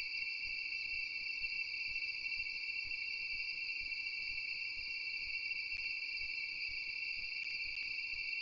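Steady chorus of insects trilling at two high pitches, with a few faint ticks near the end.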